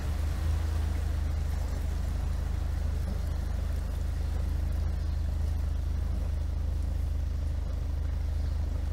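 Kent 28 Launch motorboat's engine running steadily, a constant low hum heard from on board.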